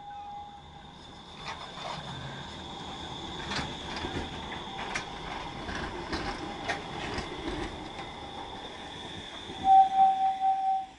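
Low-floor electric tram passing close by: its wheels click over rail joints under a steady high whine. Near the end a loud, pulsing signal tone sounds.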